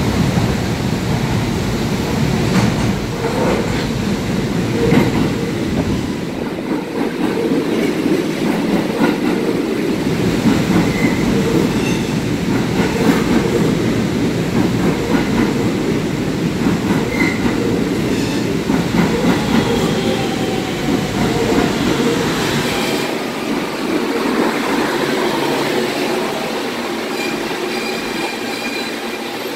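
New York City Subway R160 train with Siemens propulsion arriving at an underground station: a loud, steady rumble with clicking as the cars run past, then a whine falling in pitch as it slows toward a stop near the end.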